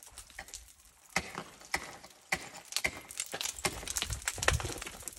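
Ice-climbing gear working on ice: an irregular series of sharp clicks, knocks and scrapes roughly every half second, with a heavier knock about four and a half seconds in.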